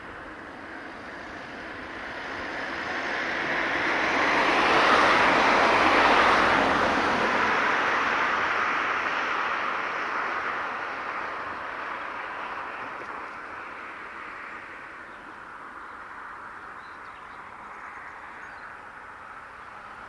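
Jet engines of an Airbus A330 Voyager tanker rolling down the runway after landing. The noise swells to its loudest about five seconds in, then slowly fades as the aircraft moves on.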